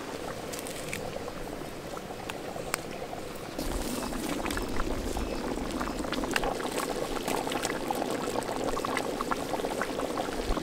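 Thick fish and prawn curry bubbling and popping in a large pot. It gets louder from about three and a half seconds in.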